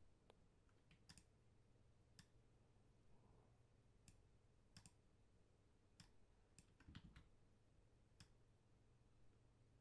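Faint, scattered clicks of a computer mouse and keyboard, about ten at irregular intervals, over a low steady hum.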